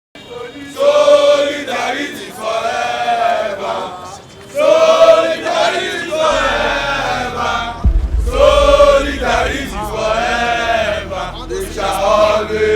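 A crowd of protesters chanting together, repeating the same short sung phrase over and over. A low rumble comes in underneath about halfway through.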